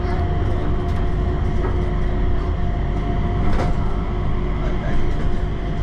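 An airport people-mover train running on its elevated guideway, heard from inside the car: a steady low rumble with a constant motor hum and a few faint clicks.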